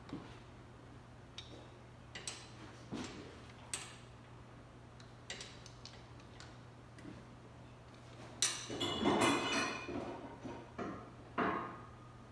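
Small metal parts and hand tools being handled: scattered clicks and clinks, then a burst of ringing metallic rattling about eight and a half seconds in, like screws being rummaged through, and one more clink near the end. A steady low hum runs underneath.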